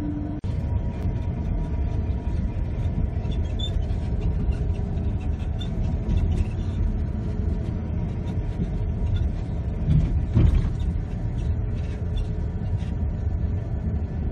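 Steady engine and road rumble inside a moving tour bus, with a brief louder thump about ten seconds in.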